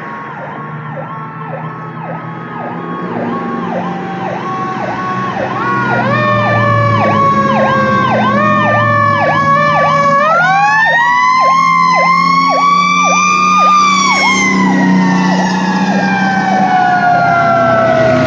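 Fire engine sirens: an electronic siren yelps rapidly, about three cycles a second, while a Federal Q2B mechanical siren winds up about six seconds in, winds higher about ten seconds in and holds its wail. Near the end the Q2B coasts down in a long falling moan. A low engine rumble runs underneath.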